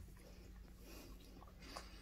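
Faint licking and mouthing sounds from a beagle working at a spiky rubber bone toy, with one brief louder wet smack near the end, over a low steady room hum.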